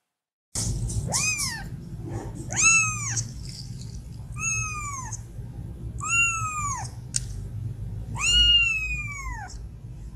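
Orange kitten meowing five times, high thin calls that rise and fall in pitch, the last one the longest, over a low rumble.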